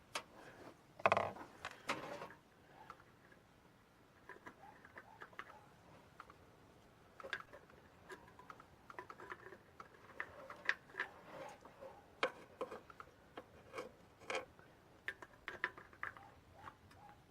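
Scattered light clicks and knocks of tools and parts being handled, with a louder clatter about one to two seconds in.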